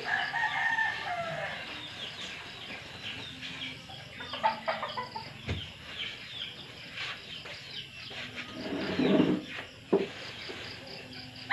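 Chickens clucking in short calls, loudest at the start, with a sharp knock about halfway through and a duller, louder thud near the end.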